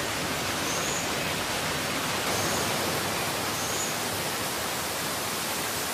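Steady rushing of water from a wet-season tropical forest, either heavy rain or a swollen river, an even hiss with no change. Three faint, short, high chirps sound over it.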